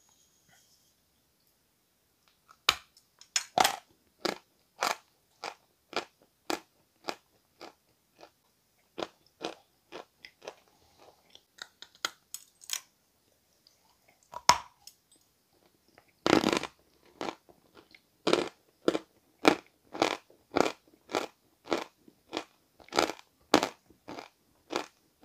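A slab of Peschanka chalk being bitten and chewed close to the microphone. Dry crunches come at a steady pace of about two a second after a quiet first two seconds. A louder snap of a fresh bite comes about halfway through.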